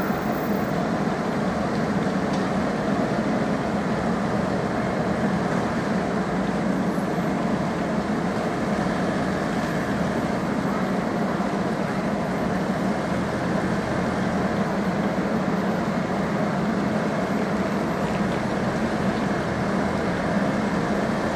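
Heavy diesel road-paving machinery running steadily at work, chiefly a Vögele asphalt paver with road rollers nearby: one even, continuous engine noise with no breaks or sudden knocks.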